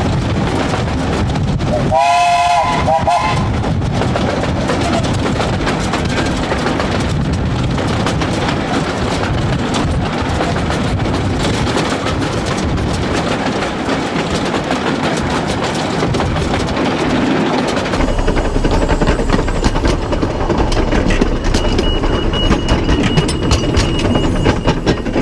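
A 15-inch gauge steam locomotive, a model of an SR&RL 2-6-2, running with its train: a continuous rumble with wheels clattering over the track. About two seconds in the whistle gives one short blast. Near the end a steady high squeal joins.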